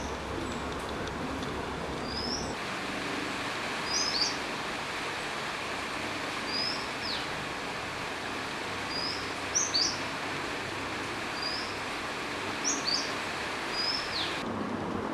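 Steady rain hissing while a bird repeats a short high call over and over, about every two seconds: a quick rising note, often followed by a sharp falling one.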